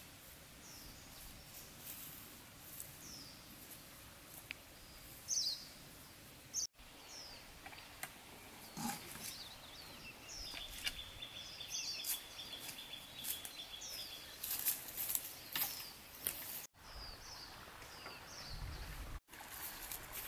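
Quiet outdoor ambience with a bird repeating short falling chirps about every second or so, and a thin steady high note for a few seconds in the middle. Brief rustles and scuffs come and go.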